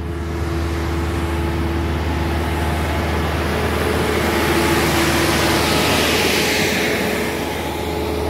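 Diesel engine of a Volvo double-drum asphalt roller running steadily as the roller passes close by while compacting fresh asphalt, growing louder to a peak about halfway through and easing near the end.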